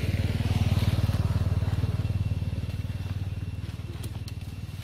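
A small engine running, its low pulsing drone swelling louder over the first second or two and then slowly fading, as of a motor vehicle passing.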